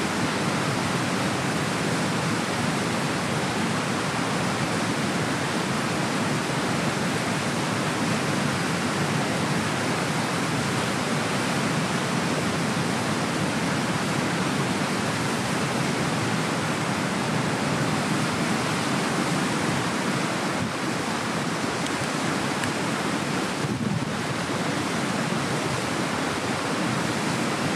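Rushing water of a small mountain creek tumbling over a waterfall and cascade: a steady, even rush.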